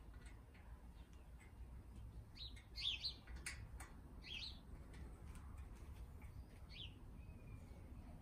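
Faint bird chirps: a few short calls about two to three seconds in, again near four and a half and seven seconds, with scattered faint clicks between them.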